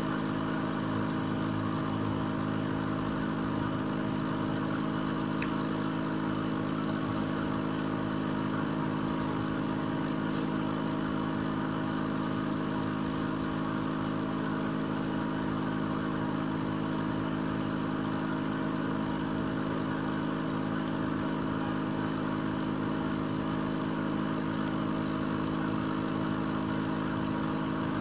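Steady electric hum of an aquarium pump, an even drone with a faint rush of air and water behind it. Over it runs a fast, evenly pulsing high-pitched ticking that stops briefly twice.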